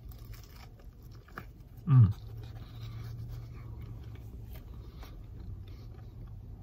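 A person chewing a bite of crispy, deep-fried breaded chicken sandwich, with faint crunching. About two seconds in comes one short, loud sound that falls in pitch.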